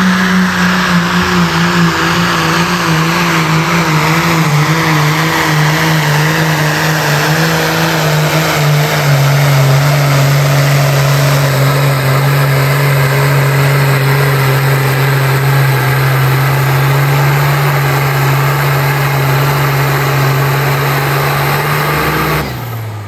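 Pro Stock pulling tractor's single-turbo diesel engine running flat out under load as it drags the weight sled. Its pitch steps down about nine seconds in and then holds steady. Near the end the engine cuts back sharply as the pull stops.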